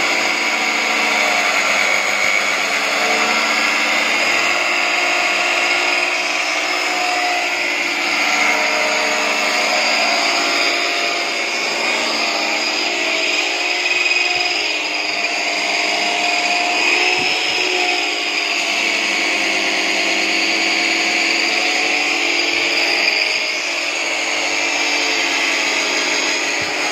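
Gaocheng GC-WL355G 355 mm abrasive cut-off saw running steadily with a high whine, its disc grinding through steel bar.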